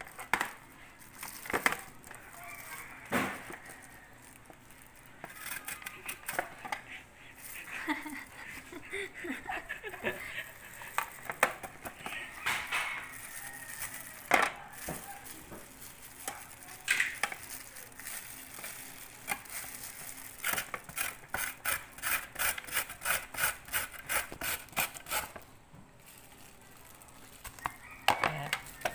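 Carrot being grated on a handheld stainless-steel grater: scattered scraping strokes at first, then a quick, even run of strokes about two or three a second in the second half, pausing briefly before starting again near the end.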